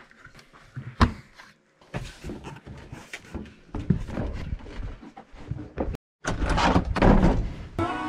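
Close handling noise of hands moving gear: a sharp knock about a second in, then scattered bumps and rustling, with louder rustling and a thump of the foam mattress being grabbed near the end.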